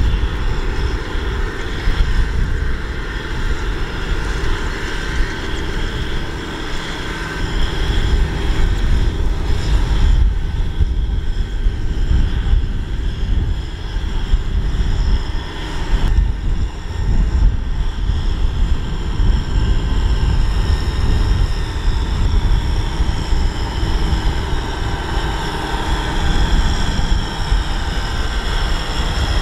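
Kubota M6040SU tractor's diesel engine running steadily under load as it drives through deep mud.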